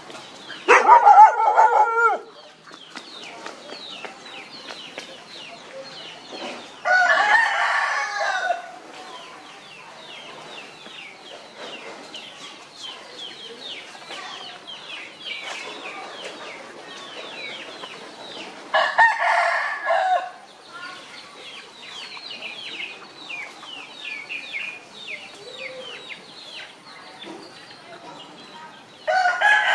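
Four rooster crows, each about a second and a half long. Near-constant high bird chirping fills the gaps between them.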